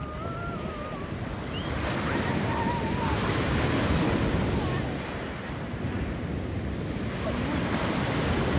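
Sea waves breaking and washing up a pebble beach, the surf swelling louder about two seconds in and again near the end.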